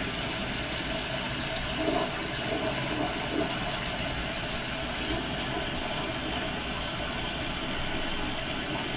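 Toilet fill valve held open, water running steadily into the tank and spilling down the overflow tube into the bowl.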